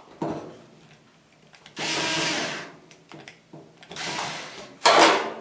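Cordless drill driving the screws of a dryer power cord's strain-relief clamp in several short bursts, the longest about a second and the loudest near the end.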